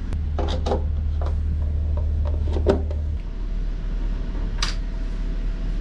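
Scattered clicks and knocks of a hand tool against screws and a metal panel as the screws are being taken out, over a low steady hum that drops away about three seconds in.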